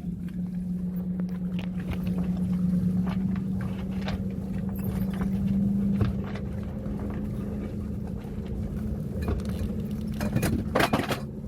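A steady low machine hum, rising slightly in pitch midway, with scattered light clicks and a cluster of sharp knocks near the end.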